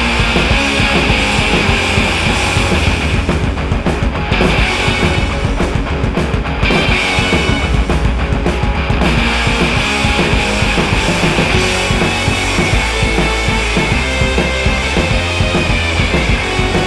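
Background rock music with a drum kit, loud and steady.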